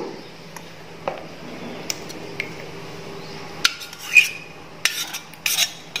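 Metal spoon clinking and scraping against a steel bowl while scooping out thick curd: scattered single clinks, one with a short ring about four seconds in, and a quicker run of knocks near the end.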